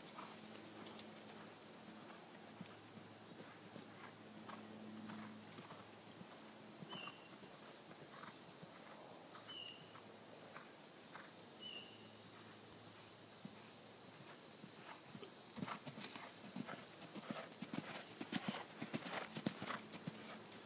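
Hoofbeats of a ridden grey horse cantering on an arena's sand footing, faint while it is far off and louder in the last few seconds as it comes close.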